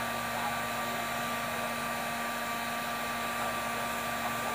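Hot air gun blowing steadily while heating a chip on a laptop motherboard, an even rushing of air with a faint steady hum in it.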